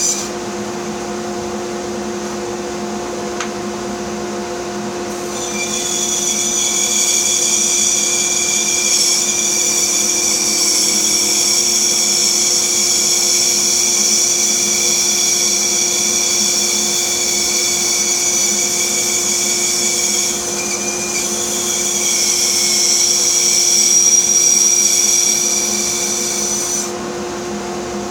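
Bandsaw running with a steady motor hum; about five seconds in a high whine joins as the blade cuts through a wood block, dipping briefly once and stopping shortly before the end.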